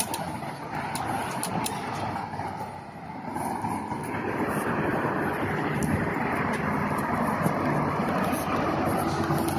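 Steady road traffic noise from cars on a freeway, a continuous wash that dips briefly and then grows a little louder about four seconds in.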